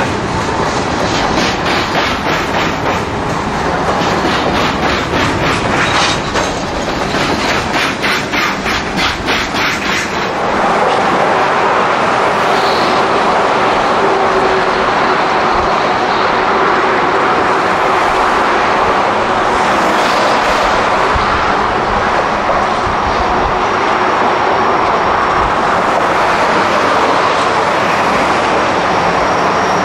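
A train rolling past. Its wheels click over rail joints in a fast, even rhythm for about the first ten seconds, then give way to a steadier, louder rolling noise with a faint steady whine.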